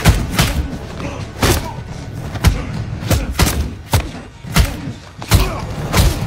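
Heavy punches and body blows in a superhero fist fight, about ten hard hits at uneven intervals with short grunts of effort between them.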